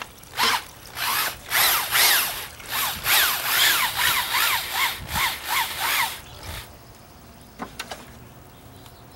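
Electric drill spinning a homemade paddle mixer through a bucket of sand mix as water is poured in, testing whether it will still turn the wet mix. The drill runs in a series of short bursts, its whine rising and falling several times a second, then stops about two-thirds of the way through, followed by a few light clicks.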